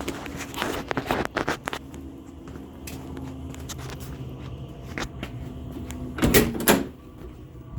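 HCALORY diesel air heater running on its lowest setting, a steady low hum with light clicks. Several knocks about a second in and two loud, sharp clunks a little after six seconds.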